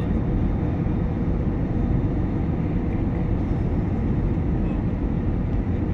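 Steady low rumble of an airliner cabin in flight, the engines and airflow running evenly with a faint steady hum above the roar.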